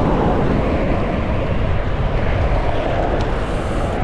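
Steady wind rushing over the microphone of a bicycle-mounted or handheld camera while riding along a road, with road noise underneath.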